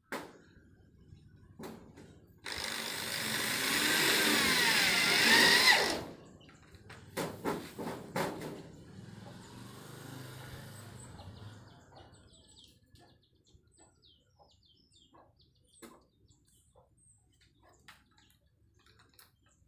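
A small motor-driven rice harvesting machine runs for about three and a half seconds, its whine wavering up and down, then stops. A few sharp clicks and knocks follow, then a fainter hum for a few seconds.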